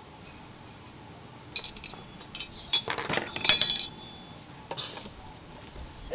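Metal tools clinking together as they are handled and picked up: a run of sharp, ringing clinks starting about a second and a half in, loudest near four seconds, then one more clink about five seconds in.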